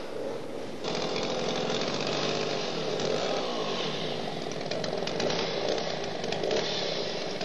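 Chainsaw running at the base of a large tree, its engine pitch rising and falling as it cuts into the trunk. It starts abruptly about a second in.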